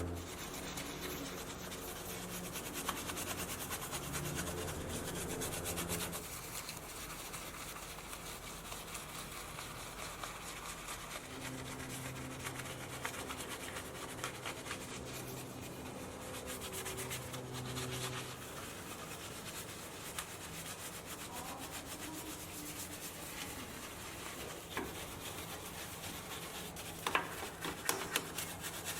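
Steady rubbing and scrubbing against a car's surface during detailing: continuous friction noise made of many fine strokes, with a few sharper scrapes near the end.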